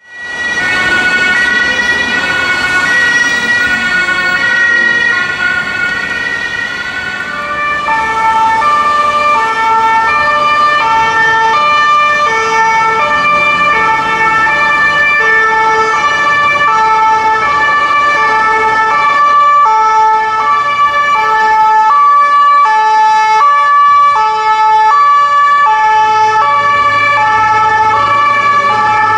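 Two-tone emergency sirens: a police car's siren alternating between two high notes, then from about seven seconds in an ambulance's lower two-tone siren alternating between its notes as it drives past, over traffic noise.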